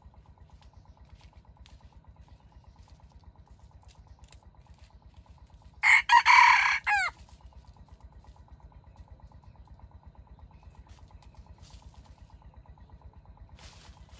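A red junglefowl rooster crows once, a short crow of about a second that drops in pitch at the end. A faint steady hum runs underneath.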